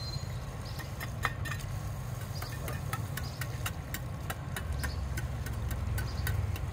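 A small engine running steadily with a low hum, with light, evenly spaced ticks about three a second.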